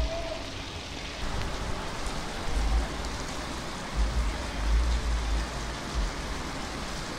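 Steady rain falling, an even hiss of drops on leaves and wet ground that grows fuller about a second in, with irregular low rumbles.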